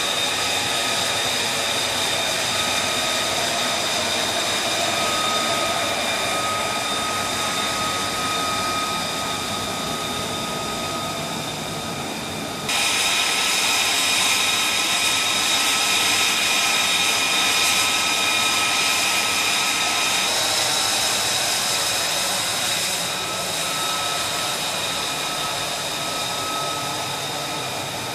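F-35B Lightning II's Pratt & Whitney F135 turbofan running on deck: a steady jet roar with a high, steady whine, and the sound jumps louder about halfway through.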